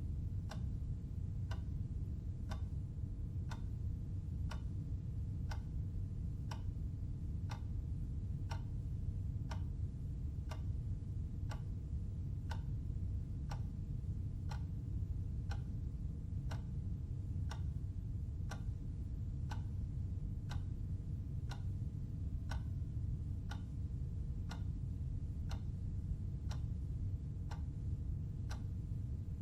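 Clock ticking at an even, steady pace, a little faster than once a second, over a low steady hum.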